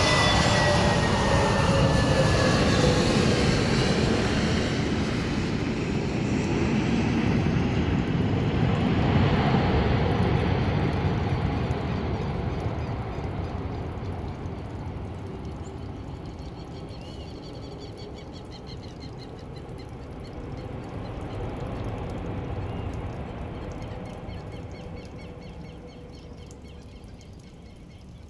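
Airbus A320neo rolling out after landing on a wet runway, its Pratt & Whitney geared turbofans giving a loud jet roar with a whine that falls in pitch at the start. The roar swells again around nine seconds in, then fades steadily as the aircraft slows and moves away.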